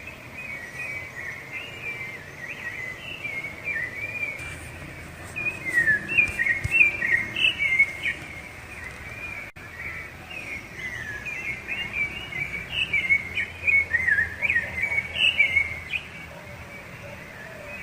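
Rufous-bellied thrush singing: a continuous run of short, varied fluting phrases that slide up and down, louder in two stretches mid-way and later on.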